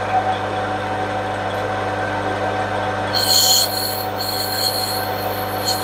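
Metal lathe running with a steady motor hum while a boring tool takes a light cut inside a spinning brass axle pump body. About three seconds in, a high-pitched squeal of the tool on the brass sets in.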